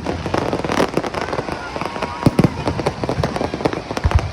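Fireworks display: a rapid run of sharp bangs and crackles, with deep booms from aerial shells several times.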